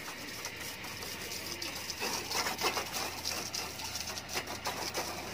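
Water from a garden hose splashing onto a motorcycle and the ground: a steady hiss with irregular splashes, a little louder from about two seconds in.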